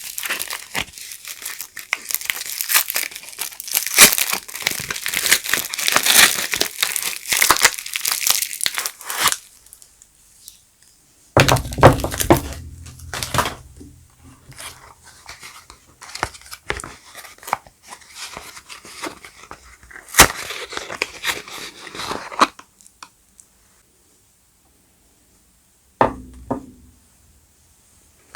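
Soap packaging being unwrapped by hand: wrapping crinkling and tearing in long runs, with a few soft low thumps partway through and again near the end.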